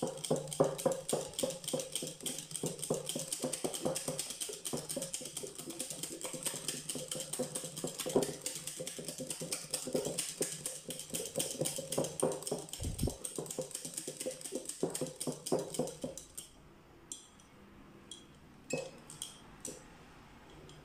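A wire whisk beating a thin flour-and-yeast batter in a glass bowl: fast, regular clicking and tapping of the wires against the glass with a wet slapping, stopping about 16 seconds in, followed by a few light taps.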